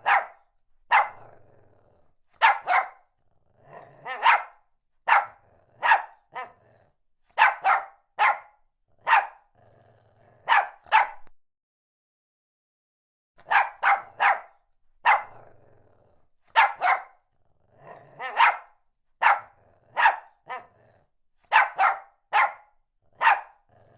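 A dog barking repeatedly in short, sharp barks, singly and in quick pairs, about one a second, with a pause of about two seconds around the middle.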